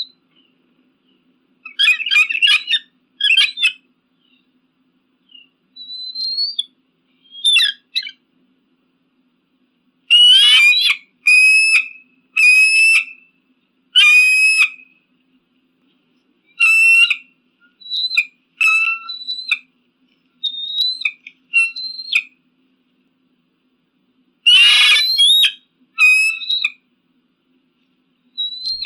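Eagle giving high whistled calls in short runs of repeated notes, separated by pauses, with a harsher, louder call near the end.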